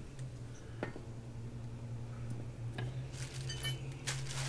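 Metal hand tools knocking and clinking on a concrete floor as they are handled and picked up: a couple of sharp light knocks, then a brief metallic ringing clink, then rustling handling noise near the end, over a steady low hum.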